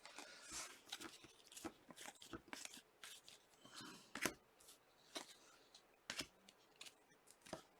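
Faint, scattered rustles and clicks of Panini soccer trading cards being handled and flipped through.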